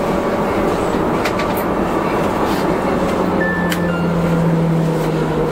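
Milan M5 driverless metro train running through a tunnel, heard from inside the car: a steady rumble of wheels and running gear with a few sharp clicks. From about halfway a low motor whine comes in and falls slowly in pitch as the train slows for the next station.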